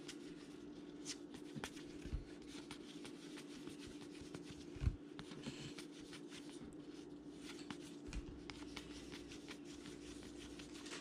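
Baseball trading cards being thumbed through by hand, a faint rustle and flick of card stock sliding past card, with one sharper click about five seconds in. A steady low hum sits underneath.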